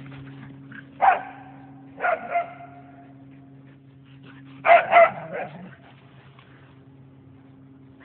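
Whippet barking in play: one bark about a second in, two more a second later, then three quick barks in the middle, over a steady low hum.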